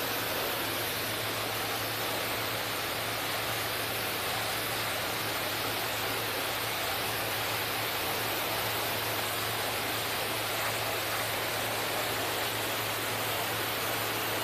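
Pressure washer jet spraying water onto the underside of a pickup's hood and into the engine bay: a steady, unbroken hiss over a constant low motor hum.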